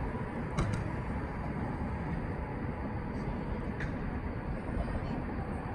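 Steady low rumble of outdoor background noise, typical of distant traffic, with faint clicks about half a second in and near four seconds.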